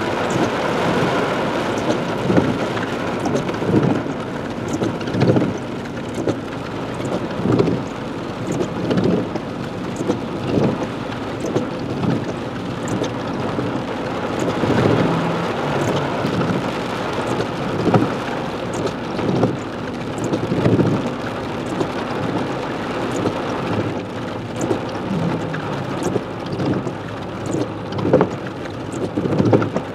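Heavy rain beating on a car's roof and windshield, heard from inside the car, with the windshield wipers thumping across the glass about once every second and a half.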